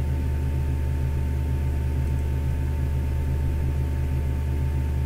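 Steady low electrical hum with evenly spaced overtones and a faint steady higher tone over it, unchanging throughout.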